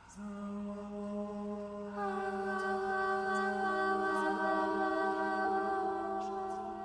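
Ten-voice a cappella vocal ensemble singing long held chords. A low note enters just after the start, and higher voices join about two seconds in and again partway through, building a steady sustained chord.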